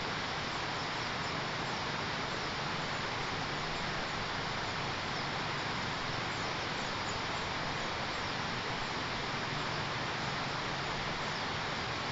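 Steady outdoor background hiss, even and unchanging, with no distinct bird calls standing out.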